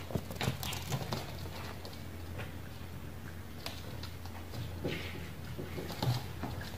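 Shiba Inu puppies' claws clicking and paws scuffing on a hardwood floor as they scamper and wrestle over a plush toy, in scattered bursts, busiest in the first second and again near the end, over a steady low hum.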